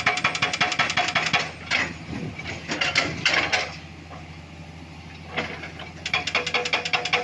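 Excavator's hydraulic breaker hammering rock in a fast, even run of blows. It stops about a second and a half in, leaving the engine running with a few separate knocks, and starts hammering again about six seconds in.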